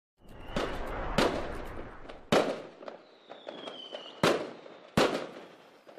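About five sharp bangs at uneven intervals, each with a short ringing tail, and a faint whistle gliding down in pitch about halfway through.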